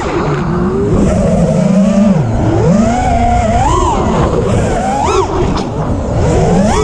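Armattan Rooster FPV quadcopter's brushless motors and propellers whining, the pitch sweeping up and down sharply and repeatedly as the throttle is punched and chopped, over a steady rushing noise.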